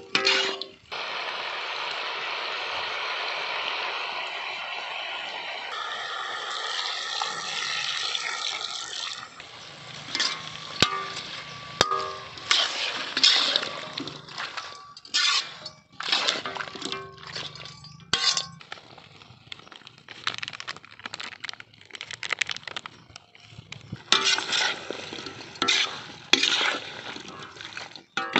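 Chicken feet frying in a large metal wok: loud steady sizzling for the first several seconds, then a metal spatula scraping and clinking against the pan again and again over quieter sizzling.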